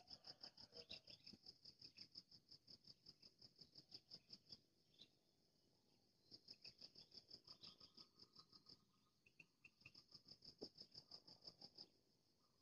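Faint insect trill: rapid, evenly spaced high-pitched pulses in three bouts of a few seconds each, with short pauses between them.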